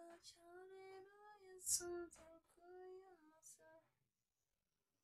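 A single high voice singing softly without accompaniment, a few held, sliding notes that stop nearly four seconds in. A short burst of noise just under two seconds in is the loudest moment.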